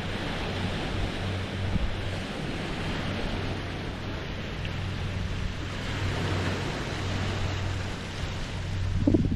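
Small lake waves lapping against the shore in a steady wash, with wind buffeting the microphone and a stronger gust near the end.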